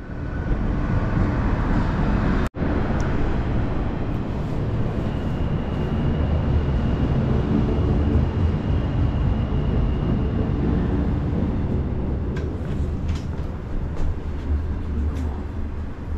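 Duquesne Incline's cable-hauled funicular car running on its rails, a loud steady rumble. The rumble cuts out for an instant about two and a half seconds in. A faint high whine runs through the middle, and a few clicks come near the end.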